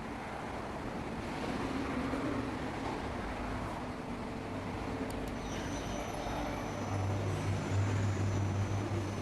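Mori Seiki SL-3A CNC lathe running on a test run: a steady machine hum, with a click and then a thin high whine setting in about five seconds in.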